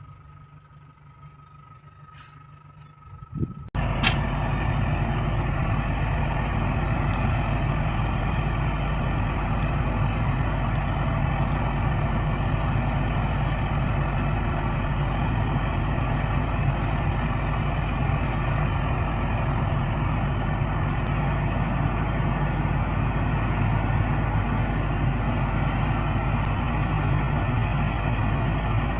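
Caterpillar 320D excavator's diesel engine, coming in abruptly about four seconds in and then running steadily.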